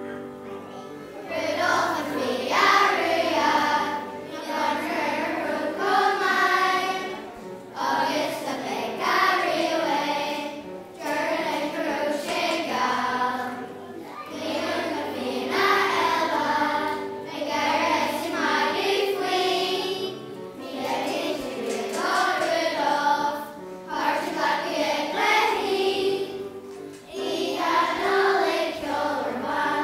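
Children's choir singing a festive song in phrases of a couple of seconds each, over a steady instrumental accompaniment.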